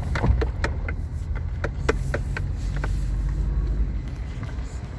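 Low, steady rumble of a moving car heard from inside the cabin, with a run of sharp knocks and clicks during the first few seconds.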